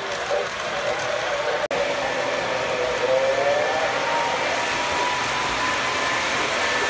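Model trains running on a home layout: a steady rushing noise with wavering, gliding tones over it. The sound drops out for an instant about a second and a half in.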